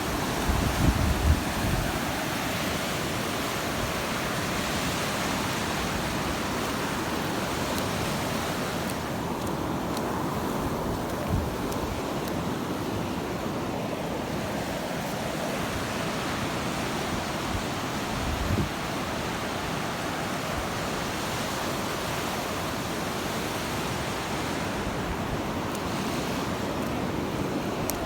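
Surf breaking and washing on a beach under a steady wind, with wind buffeting the microphone in gusts near the start and twice more later.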